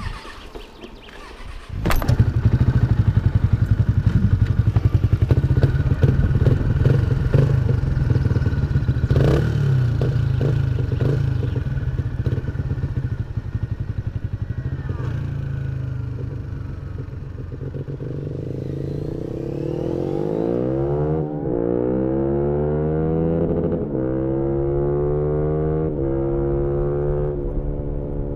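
Yamaha MT-125's single-cylinder 125cc four-stroke engine with an aftermarket GPR exhaust, heard onboard. It starts up suddenly about two seconds in and runs steadily, then the bike pulls away, the engine note rising and dropping through about three upshifts.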